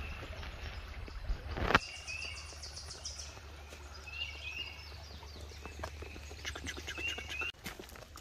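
A small bird chirping in short calls, two or three at a time, repeated several times over a low steady hum. A single sharp knock about two seconds in is the loudest sound.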